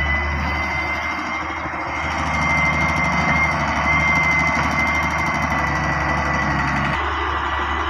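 Heavy machinery's diesel engine running steadily with a high, steady whine over it. A lower engine note comes in stronger about two seconds in and drops out sharply about seven seconds in.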